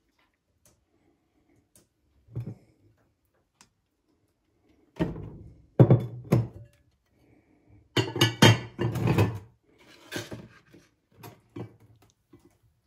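Irregular knocks and thuds as a borosilicate glass casserole dish is handled, in clusters about two seconds in, around five to six and a half seconds, and again around eight to nine and a half seconds, with a few lighter knocks near the end.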